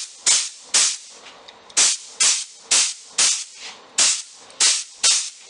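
Lacquer spray gun spraying in short trigger-pulled bursts, each a brief sharp hiss of air and atomised lacquer, about two a second, with a pause of under a second about a second in.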